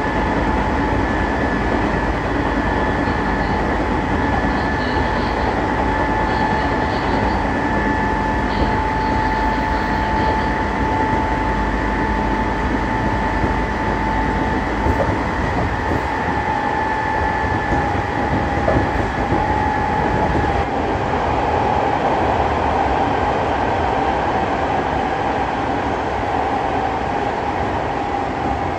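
Odakyu 8000 series field-chopper-controlled electric train running, heard from inside the car: a steady rumble of wheels on rail with a steady whine over it. The whine sinks slightly in pitch over the last several seconds.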